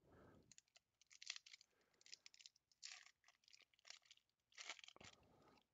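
Faint crinkling and tearing of a trading-card pack's foil wrapper being pulled open by hand, in short crackly bursts about once a second.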